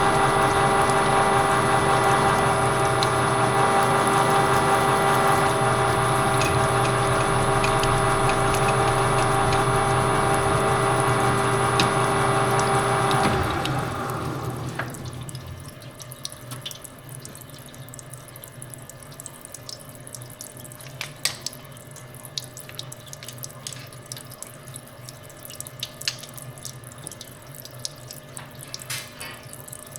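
A metal-cutting machine tool running steadily with a multi-toned mechanical whine. About 13 seconds in it is switched off and winds down, falling in pitch. After that there are only scattered light clicks and taps.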